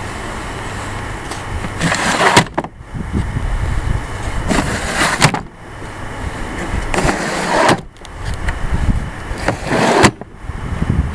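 Tool chest drawers sliding on their runners four times, each slide ending in a sharp click as the drawer stops, over a steady low rumble of wind on the microphone.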